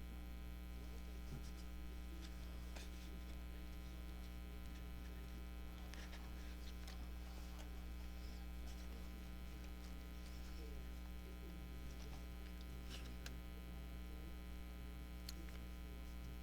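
Steady low electrical hum with evenly spaced overtones, with a few faint, brief ticks and rustles scattered through it.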